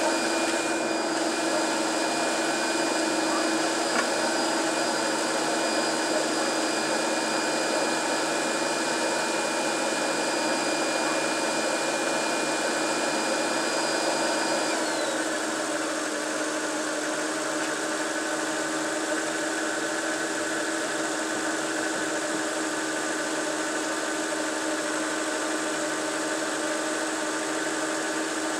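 Car engine idling steadily with the hood open, running on its newly fitted crankshaft position sensor. A high whine over the idle drops slightly in pitch about halfway through as the idle settles a little lower.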